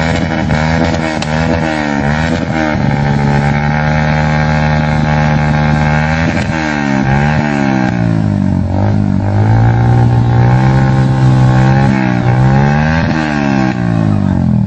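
Motorcycle engine revving: its pitch holds steady for a few seconds, then repeatedly drops and climbs again in quick swoops through the second half.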